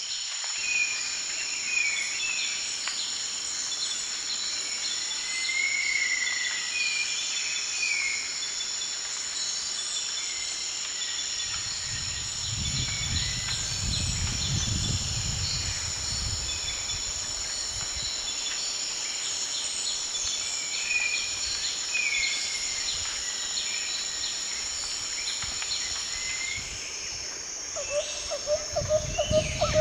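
Forest ambience: a steady high-pitched drone of insects with birds chirping now and then. A low rumble swells and fades about halfway through.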